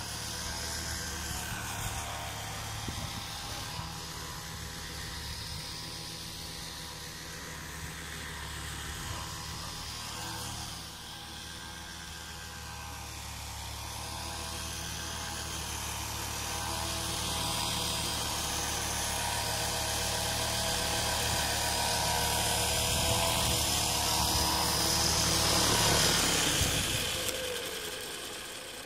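Radio-controlled model helicopter's motor and rotor running steadily in flight. It grows louder as the helicopter comes closer, then falls in pitch and fades near the end as it lands and the rotor spools down.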